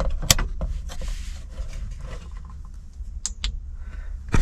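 Hands handling small plastic dash parts: a sharp click just after the start, light rubbing and scraping, two quick ticks a little past three seconds, and a louder click at the end, over a low steady hum.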